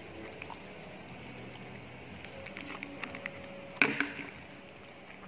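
Small handling noises from unpacking the kit: scattered light clicks and taps, with one sharper click a little before four seconds in.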